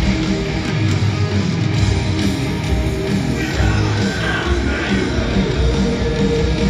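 Heavy metal band playing live through a stadium sound system, heard from the stands: distorted electric guitars, bass and drums in a loud, continuous wash.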